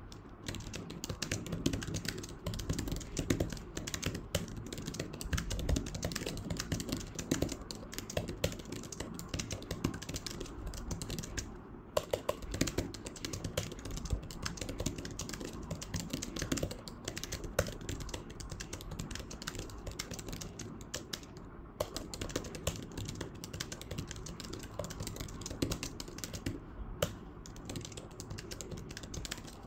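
Typing on a physical keyboard attached to a tablet: a fast, steady run of key clicks, with a couple of brief pauses.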